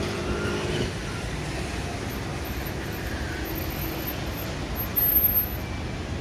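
Steady street traffic noise, with a short louder rush about five seconds in.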